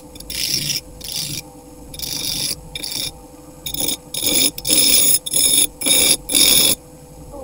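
Wood being rasped or abraded by hand in repeated rubbing strokes, each a short hiss. The strokes come quicker and louder after about four seconds, roughly two a second.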